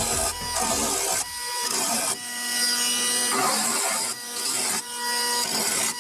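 Metalworking tool on rusted car body sheet metal: a rasping scrape in repeated strokes about a second long, with a steady whine under it. Music fades out in the first second or so.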